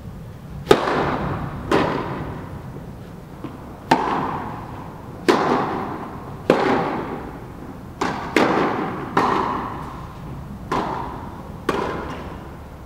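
A tennis rally: a ball struck back and forth with rackets and bouncing on the court, about ten sharp knocks roughly a second apart. Each knock echoes around the hall.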